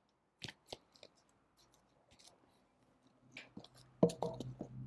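Vinyl LP jackets in shrink-wrap being handled and set down in a record bin. There are a few light taps and clicks about half a second to a second in, then a busier run of clicks and plastic rustle near the end.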